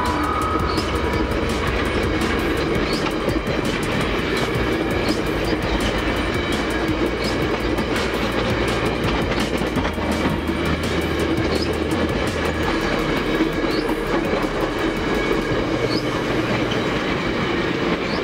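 Stainless-steel passenger cars of VIA Rail's The Canadian rolling past close by: a steady rumble of wheels on rail with clickety-clack over the rail joints and a clack pattern repeating about every two seconds.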